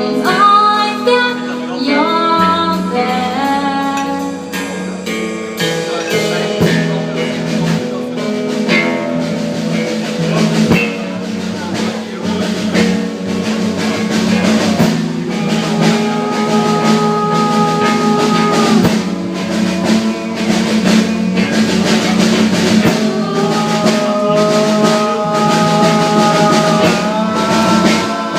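Live rock band playing an instrumental passage: drum kit and guitar, with long held lead notes over the top in the second half.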